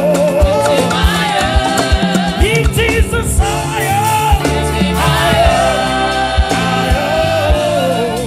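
Gospel praise music: voices singing a wordless or untranscribed melody over bass and a steady drum beat.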